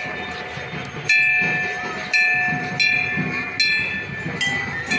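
A hanging metal bell rung over and over, about once a second, each strike ringing on with a clear tone that fades. Crowd chatter underneath.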